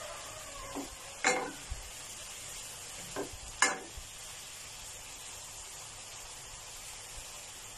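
Diced chicken breast bubbling and sizzling in garlic water in a frying pan, cooked without oil, with a steady hiss. A spatula stirring the pieces scrapes and knocks against the pan, loudest about a second in and again past three and a half seconds.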